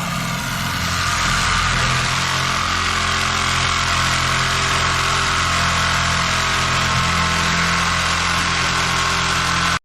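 An engine idling under a steady, high hissing whine from a power tool cutting open a steel oil tank. Both stop abruptly near the end.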